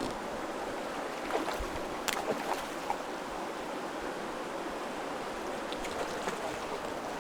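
Steady rush of flowing river water, with a few faint short sounds and a sharp click about two seconds in.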